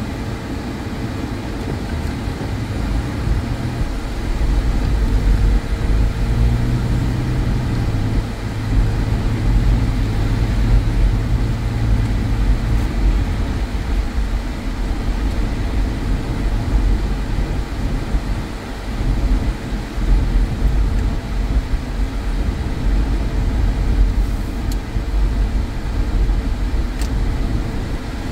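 A car heard from inside its cabin: engine and tyre rumble on a snowy, slushy road, growing louder about four seconds in as the car pulls away and drives on. A steady hum runs under it.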